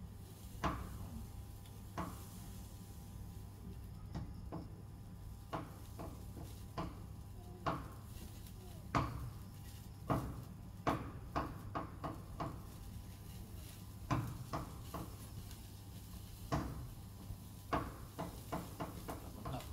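Open cooking fire crackling, with irregular sharp pops about once a second, as a whole chicken roasts over the flames on a grill rack.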